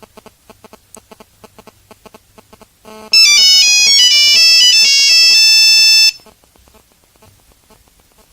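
Nokia 3310 ringtone: a loud, high, beeping monophonic melody that plays one phrase of about three seconds, starting about three seconds in and cutting off about six seconds in. Before it comes faint, rapid, evenly spaced ticking.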